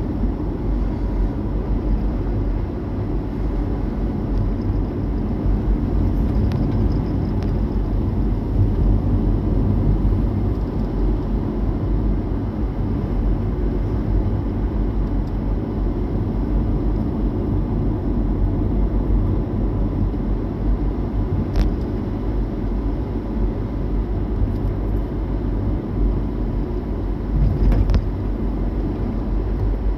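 Car on the move: a steady low rumble of engine and road noise, with two short clicks, one about two-thirds of the way through and one near the end.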